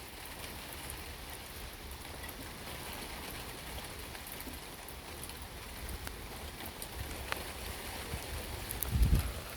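Steady storm rain falling, with scattered drop ticks. Near the end, a gust of wind buffets the microphone with a brief low rumble.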